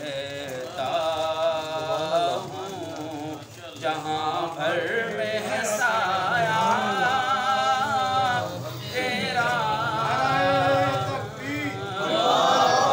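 A man singing an Urdu naat unaccompanied, drawing out long, wavering held notes with short breaks between phrases.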